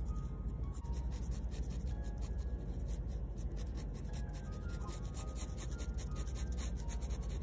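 Steel nib of a Lamy fountain pen scratching across textured watercolour paper in quick, short hatching strokes, several a second, over faint background music.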